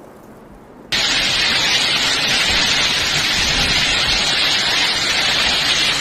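Heavy rain pouring down, a steady loud hiss that cuts in abruptly about a second in.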